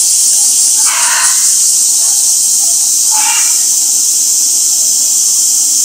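Loud, steady, high-pitched hiss of a summer cicada chorus, with brief faint voice-like sounds twice over it.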